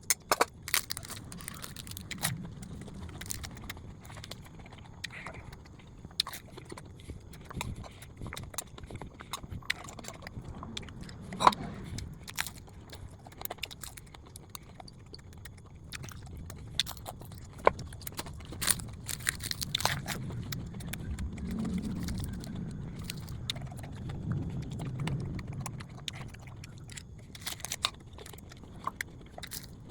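A person eating fried chicken wings with rice: chewing and biting, with many scattered sharp clicks and taps.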